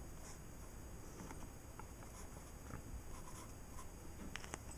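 Faint pencil strokes scratching on paper as a drawing is sketched, with a few light ticks near the end.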